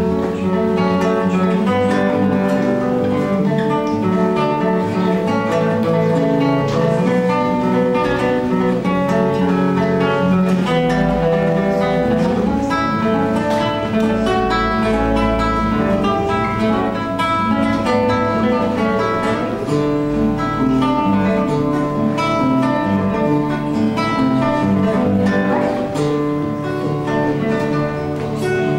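Acoustic guitar playing an instrumental piece: quick runs of plucked notes mixed with strummed chords.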